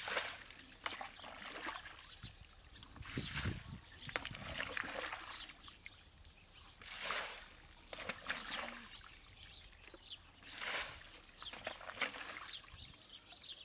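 Muddy water sloshing and splashing as a bucket is dipped into a shallow pool and poured out, one splash about every three to four seconds, with light knocks of the bucket in between.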